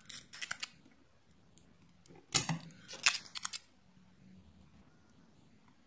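Sharp clicks and light taps of small hand tools on a circuit board, in three short clusters, during the desoldering of a microwave control board's transformer.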